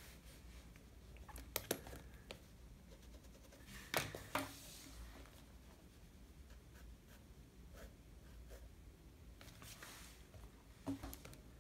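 Faint scratching of a mechanical pencil sketching on sketchbook paper. Several sharp taps and two brief hissy slides come from the sketchbook being turned and shifted on a wooden desk.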